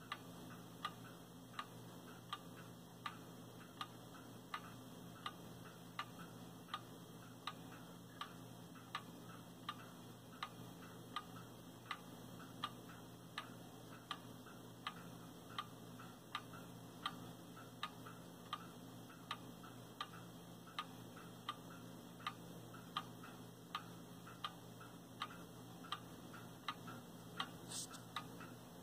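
Brass clock movement running with its wear plate turned over, ticking evenly at about four ticks every three seconds.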